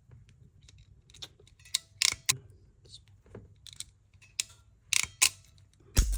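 Preciva ratcheting bootlace ferrule crimpers clicking irregularly as the handles are worked to crimp a ferrule onto a wire, with a louder knock near the end.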